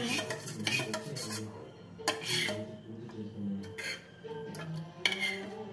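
A metal spoon clinking and scraping against a steel bowl while stirring a spoonful of honey into green leaf juice. Several separate clinks, with faint music behind.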